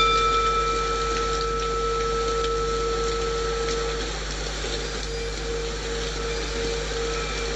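A singing bowl struck once, ringing with a low hum and a few higher overtones that slowly fade, the hum wavering as it dies away; the strike is a breathing cue. Under it runs a steady hiss of recorded rain white noise.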